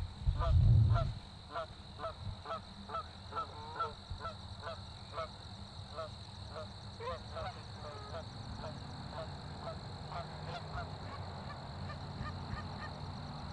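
A flock of Canada geese honking in flight: a rapid run of short honks, two or three a second, that thin out and fade over the last few seconds. A brief low rumble about a second in.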